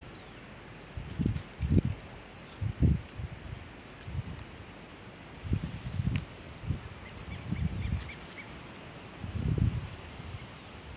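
Rufous-collared sparrow (tico-tico) nestlings begging in the nest: a string of very high, thin peeps, about two or three a second, that stops about eight seconds in. Louder low, uneven rumbling thumps run underneath.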